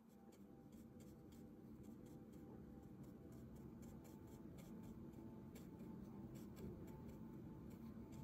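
Faint scratching and small ticks of a fine-pointed watercolour brush stroking paper, over a low steady hum.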